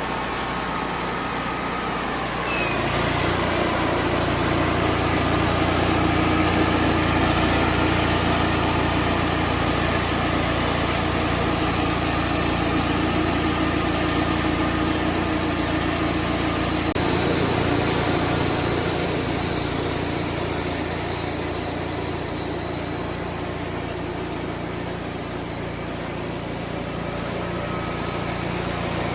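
Band sawmill running with its engine under steady load as the blade slabs a red oak log. It gets louder about two and a half seconds in, and the sound shifts abruptly a little past the middle.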